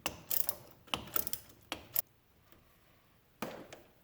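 Ratchet wrench clicking in quick runs as it turns and tightens the brake caliper's mounting bolts, then a short clatter about three and a half seconds in.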